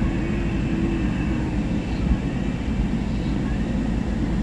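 Steady low rumble of a car driving in heavy rain, heard from inside the cabin: road and engine noise with rain on the car.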